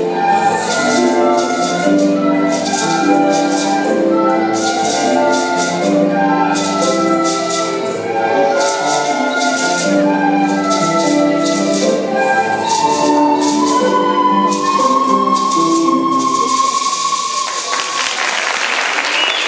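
Student ensemble of flutes playing a tune over a shaker keeping a steady beat. It closes on one long held high note, and about seventeen seconds in applause breaks out.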